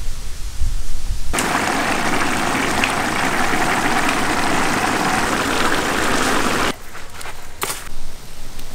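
Large pot of rice boiling hard in spiced water, a dense bubbling hiss that starts about a second in and cuts off suddenly near the end.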